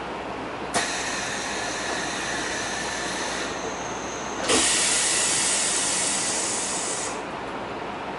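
Compressed air hissing out twice on board a Kyoto Municipal Subway 20 series train: a sudden hiss with a click about a second in, then a louder one starting with a knock about halfway through and lasting a couple of seconds. Steady low train noise runs beneath.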